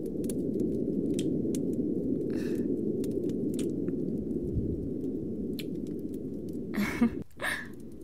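Close-miked wet kissing and mouth sounds: scattered soft clicks, with breaths about two seconds in and again near the end, over a steady low background rumble.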